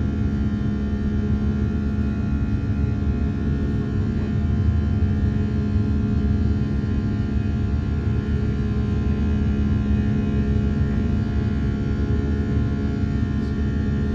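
Steady cabin noise of an Airbus A340-300 heard from inside: a constant low rumble from the four CFM56 engines and airflow, with a steady droning engine tone and fainter high steady tones over it.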